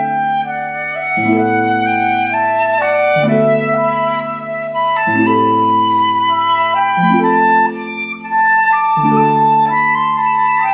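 Instrumental music: a woodwind melody plays over low held chords that change about every two seconds.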